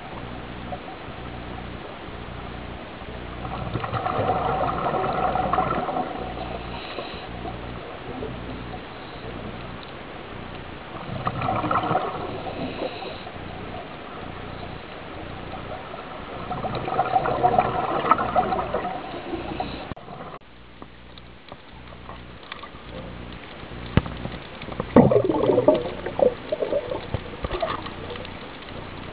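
Underwater sound of a scuba diver breathing through a regulator: exhaled bubbles gurgle in three swells about six seconds apart over a steady hiss. About twenty seconds in the sound changes to irregular sloshing and knocks of water.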